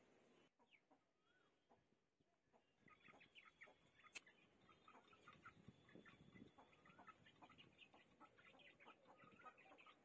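Young parrot-beak Aseel chickens pecking at feed on a concrete floor: faint, irregular rapid tapping that starts about three seconds in, with a couple of soft chirps.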